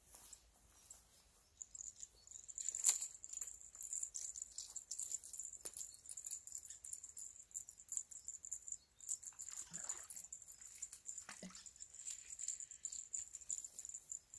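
Faint steady high-pitched insect trill that starts about two seconds in, over scattered light clicks and rustles from handling a fishing rod and its spinning reel.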